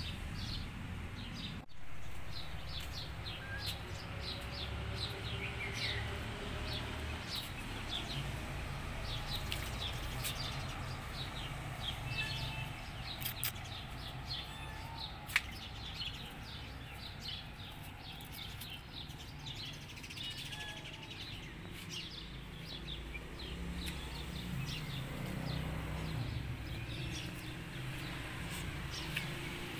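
Small birds chirping and twittering again and again, over a steady low rumble.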